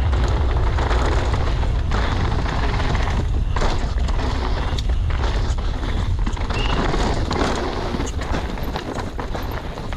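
Downhill mountain bike riding fast down a dry, loose dirt and gravel track: a heavy wind rumble on the camera microphone and tyres crunching over the dirt, with sharp knocks several times as the bike hits bumps and roots.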